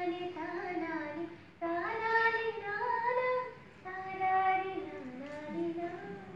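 A caller singing an Indian classical melody over the phone, heard through a television's speaker: long held notes that step and glide from pitch to pitch, with two short breaks for breath.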